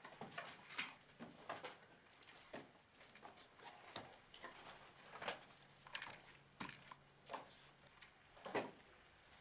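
Faint handling noises: scattered soft clicks, taps and rustles, about one or two a second, as small cardboard medicine boxes and other items are picked up and passed by hand.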